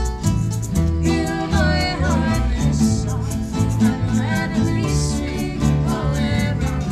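A live band playing: a guitar strummed in a steady rhythm over a moving bass line, with a voice singing from about a second in until near the end.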